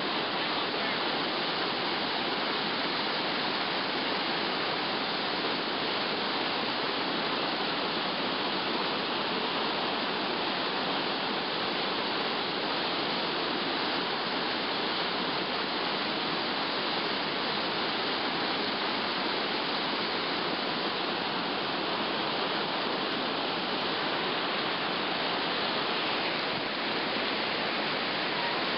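Whitewater river rapids rushing and churning steadily, a constant even noise of fast water tumbling over rocks.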